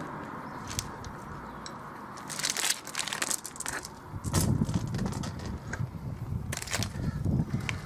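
Motorcycle roller chain clicking and rattling as it is fed by hand round the sprocket, starting about two seconds in, with rumbling handling noise from about four seconds in.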